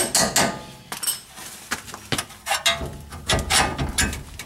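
Socket ratchet clicking as a bolt is backed out of the top of a car's rear hub, then scattered metal clinks and a dull knock a little over three seconds in as the bolt comes free and the hub is moved.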